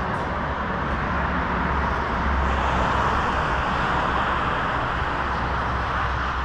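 Steady road traffic noise from a divided highway, with a low rumble that swells a little in the middle.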